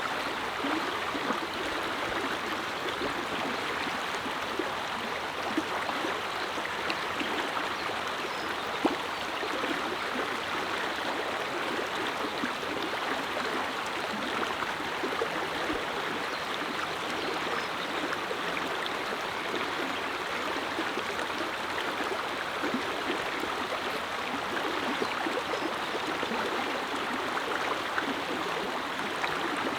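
Clear mountain river flowing: a steady rushing and babbling of water with small splashes throughout.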